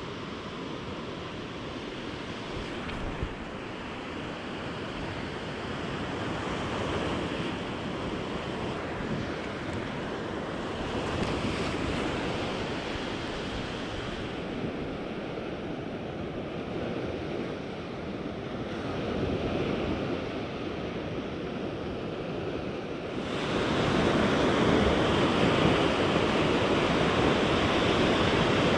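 Small ocean waves breaking and washing up a sandy beach, the surf swelling and easing. About 23 seconds in it steps up abruptly to a louder, steady rush.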